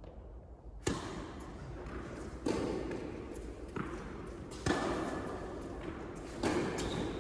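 Tennis rally on an indoor court: four sharp racket-on-ball hits about two seconds apart, each ringing briefly in the hall, with smaller ball bounces between them.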